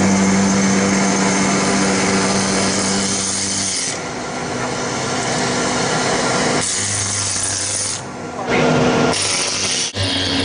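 Boiler-tube cleaning equipment running: an industrial vacuum and an air-driven Putzmaus tube cleaner making steady machine noise. A low hum drops away about four seconds in, and the sound cuts and changes abruptly twice near the end.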